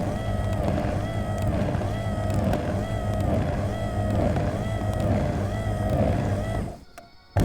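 Foot-kneading massage machine running: a steady motor hum with a whine that rises and falls over and over in a regular rhythm. The sound drops out briefly near the end.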